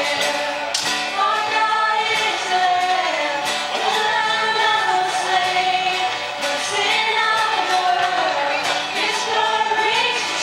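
Live worship band music: a woman singing lead over strummed acoustic guitar and band accompaniment.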